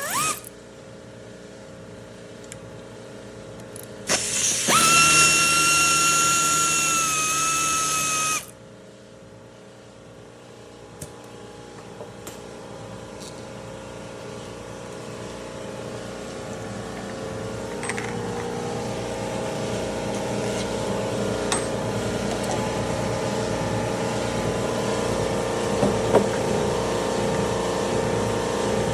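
A cordless power driver whines at a steady pitch for about four seconds, starting about four seconds in, as it spins out a manifold bolt. Through the second half a steady hum slowly grows louder behind it.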